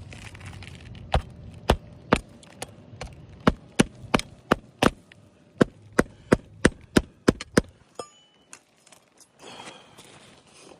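Hammer driving roofing nails into a reinstalled asphalt shingle: a run of about sixteen sharp taps, two or three a second, that stops about eight seconds in.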